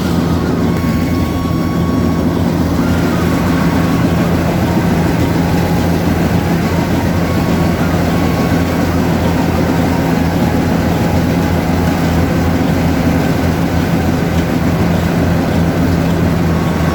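Yanmar AW70V combine harvester running steadily under load, its diesel engine and threshing machinery making a loud, even hum.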